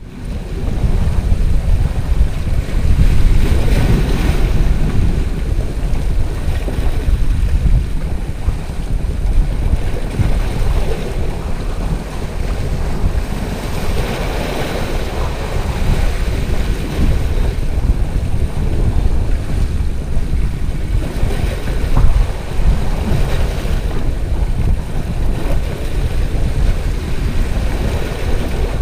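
Sea waves washing and splashing over shoreline rocks, under heavy wind buffeting the microphone with a steady low rumble.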